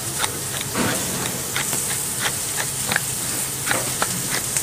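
Wooden pepper mill being twisted and grinding pepper over raw pork, in a series of short irregular clicks, over a steady background sizzle of frying.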